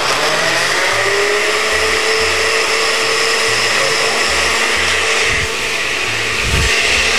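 Countertop blender with a glass jar running, puréeing a thick load of cooked beetroot and olive oil. The motor's whine rises as it comes up to speed in the first second or so, then holds steady.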